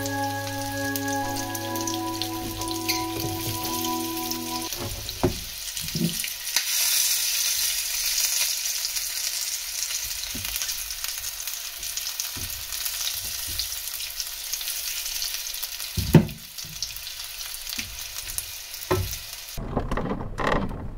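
Food sizzling with a steady crackle and a few soft knocks, after some held musical notes over a low hum in the first few seconds.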